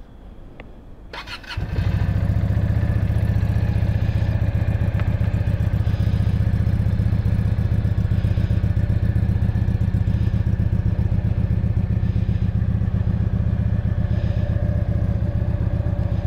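Keeway V Cruise 125's V-twin engine cold-started: the electric starter cranks briefly about a second in, the engine catches and settles straight into a steady idle.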